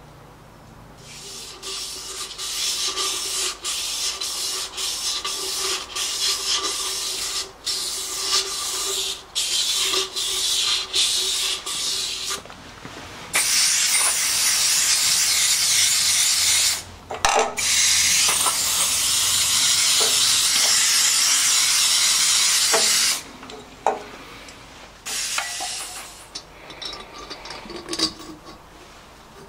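Aerosol spray can spraying at a diesel engine piston: a run of short spurts, then two long continuous sprays of several seconds each.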